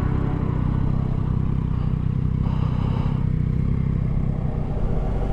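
Yamaha Tracer 9 GT's 890 cc three-cylinder engine running steadily at low road speed, under road and wind noise.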